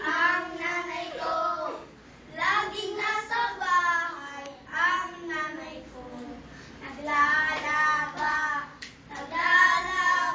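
Young children singing in short phrases with brief pauses between them.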